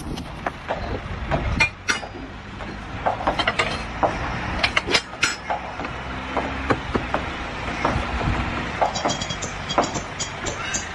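Work-site clatter: irregular knocks and clanks over a steady low rumble, with a quick regular ticking joining near the end.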